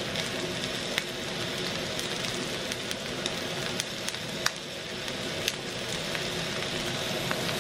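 Beef shank slice searing in hot oil in a pan: a steady sizzle with a few sharp pops of spitting fat.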